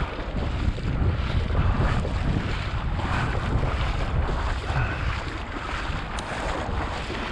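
Wind rumbling on the microphone, with the uneven slosh of someone wading through shallow marsh water.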